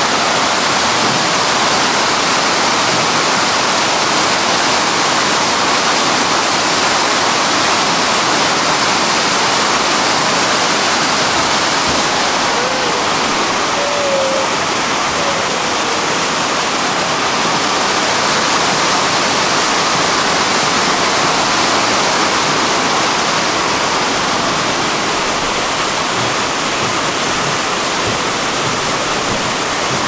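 Steady, loud rush of water from Shifen Waterfall, a continuous dense noise with no let-up. A few faint short whistling notes sound about halfway through.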